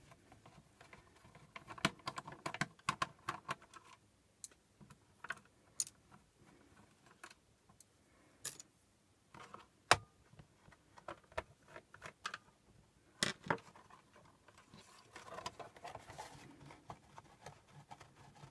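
Small irregular clicks and taps of a screwdriver and fingers on the plastic underside of a Getac S410 G2 rugged laptop as missed screws are taken out, with a sharper click about ten seconds in and a stretch of handling noise near the end as the laptop is gripped and moved.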